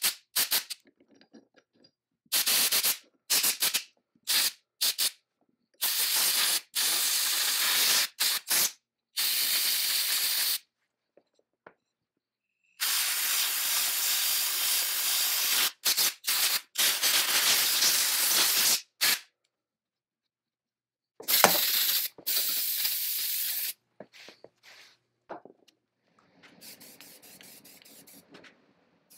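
Compressed-air blow gun blasting the swing saw's arbor housing in a string of hissing bursts, some short puffs and some held for several seconds, blowing out old grease and grit.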